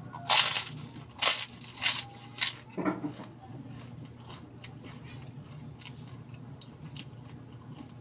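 A person biting into and chewing a balut, a boiled fertilised duck egg: about five loud bites and mouth noises in the first three seconds, then quieter chewing.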